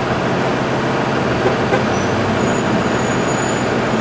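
Steady vehicle noise: a low, even hum with hiss that does not change.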